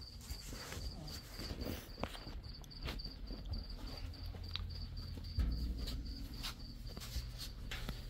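A cricket chirping steadily, a high pulsed trill repeating about four times a second. Scattered clicks and knocks, and a low bump about five seconds in, sound over it.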